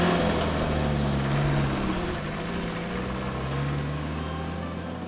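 Flatbed truck's engine pulling away and accelerating on a wet road. The engine pitch climbs, drops about two seconds in as it shifts up a gear, then climbs again, growing fainter as the truck moves off.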